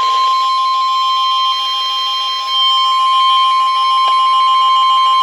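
Emergency weather alert attention tone: a loud, steady electronic alarm tone held at one pitch, with fainter tones pulsing rapidly beneath it, sounding ahead of a severe thunderstorm warning message.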